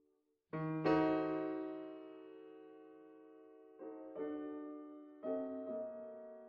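Background piano music: chords struck a few seconds apart, each left to ring and fade away.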